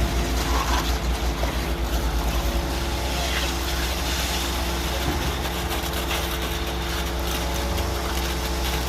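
Sany truck-mounted concrete boom pump running steadily with a low drone and a steady hum. There is a fast low pulsing for the first two or three seconds, and then it evens out.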